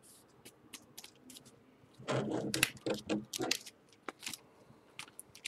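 Football trading cards being shuffled and handled by hand: scattered light clicks and ticks of card edges and sleeves. A quiet, muffled muttering voice comes in for about a second and a half midway.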